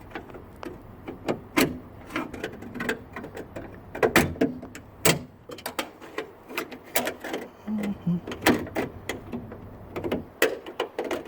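A stiff wire hook scraping and clicking against a truck cab door's window seal, glass and inner door parts as it is worked inside to catch the lock lever: irregular taps and scrapes, with two louder knocks about four and five seconds in.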